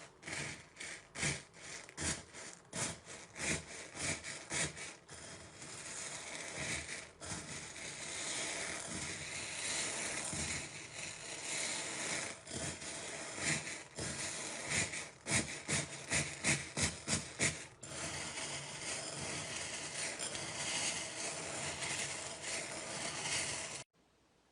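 A knife scraping and cutting into a bar of soap: runs of short, quick strokes alternate with longer steady scraping, then it cuts off abruptly near the end.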